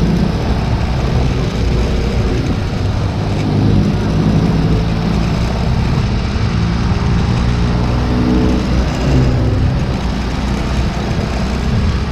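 Motorcycle riding through town traffic: its engine runs continuously with the note shifting up and down in pitch now and then, over steady road and wind noise, with other vehicles such as a jeepney running close by.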